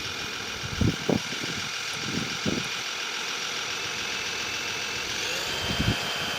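Servonaut sound module on an RC Kenworth truck playing a simulated diesel truck engine through its speaker, running steadily, with the pitch stepping up a little past five seconds. Several short low thumps come through on top, the loudest about a second in.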